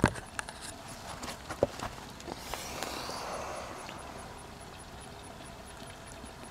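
Handling noise from the camera: a few sharp knocks and clicks in the first two seconds, the first one the loudest, then a brief rustle. After that comes quiet outdoor background with a faint, high ticking about three to four times a second.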